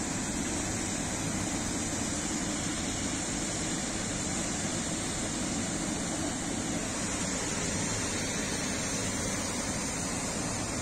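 Steady, even outdoor rushing noise of wind and water, with no distinct events.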